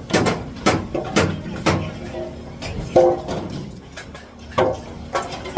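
Hammer blows on aluminium formwork panels and pins, each strike ringing briefly: four quick blows about half a second apart, then three more spaced out.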